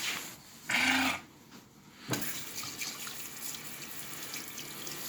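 Wallgate automatic hand-wash unit running water from its tap onto hands and into the basin, starting about two seconds in and running steadily. It is preceded by a short loud buzz about a second in.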